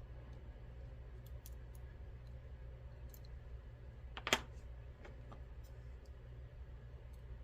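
Small clicks and taps from handling the disassembled Mul-T-Lock MT5+ lock and its parts while taking its sliders out: a few light ticks, then one sharper click about four seconds in, over a low steady hum.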